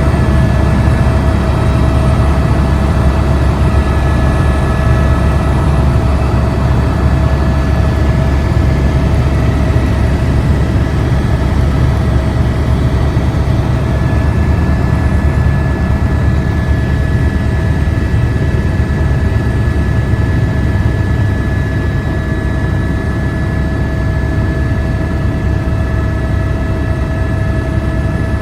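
Steady, loud low machine rumble with several constant hum tones above it, unchanging throughout.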